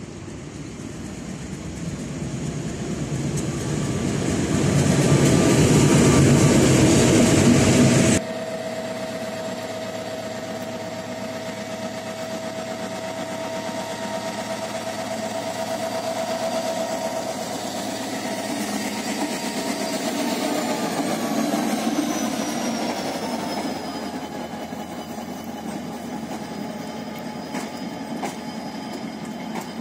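Diesel locomotive approaching, loud and growing louder, then cutting off suddenly about eight seconds in. A diesel locomotive hauling passenger coaches follows: its engine drones steadily with a held tone, a high tone glides down in pitch a little after twenty seconds, and sharp wheel clicks come near the end as the coaches pass.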